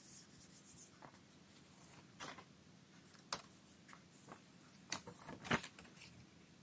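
A hand rubbing across paper laid on a gel printing plate for the first second, then a few short paper clicks and crackles as the inked card is peeled up off the plate.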